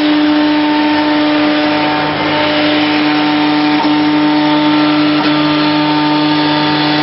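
ATC CNC router running steadily: a constant machine whine with a hum underneath, over a loud rushing noise, with no change in pitch.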